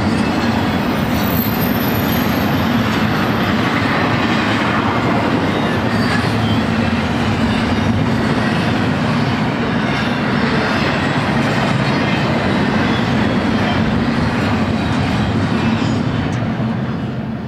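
Double-stack intermodal well cars rolling past on steel rails in a loud, steady rumble, with a faint high wheel squeal about two seconds in. The noise fades near the end as the tail of the train passes.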